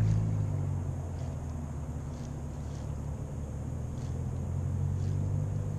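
Low, steady drone of a motorboat engine running, a little louder at the start and then easing off slightly.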